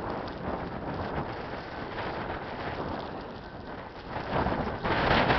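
Blizzard wind blowing and buffeting the microphone, a steady rushing noise that surges louder near the end.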